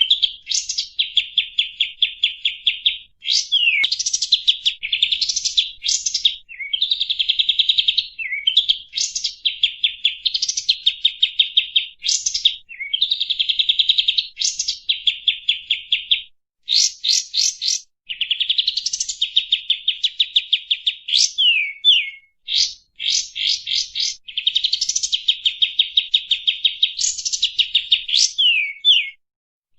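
Kapas tembak song: long runs of rapid chattering notes, each phrase opening with upward-sweeping whistles, repeated again and again with brief pauses between phrases.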